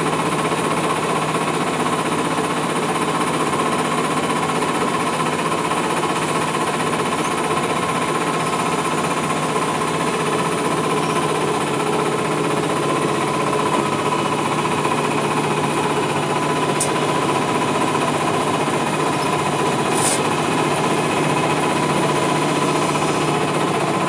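A small boat's engine running steadily at an even pitch, driving the boat across the water.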